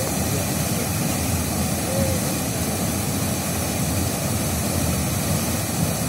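Muddy floodwater pouring through a breach in an eroded earthen embankment and churning in the channel below: a steady, unbroken rushing of water.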